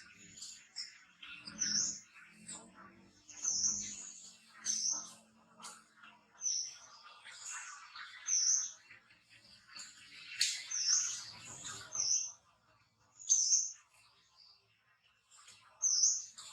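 Short, high-pitched chirping calls repeating about once a second or more often, with some low rustling and handling noise in the first few seconds.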